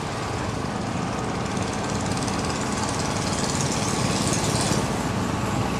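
Motorcycle engine running at a steady speed, getting slightly louder over the first few seconds.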